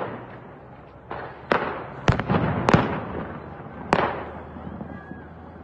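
Gunshots echoing over a city: about five sharp, irregularly spaced cracks with fainter pops between them, each followed by a long rolling echo.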